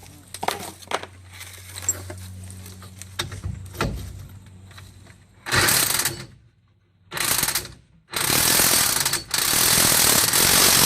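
Impact wrench hammering in four bursts, short ones at first and then a long one of about three seconds, driving the pinion nut onto the yoke of a Chevy 12-bolt rear axle. Before it come light metal clinks of parts being handled.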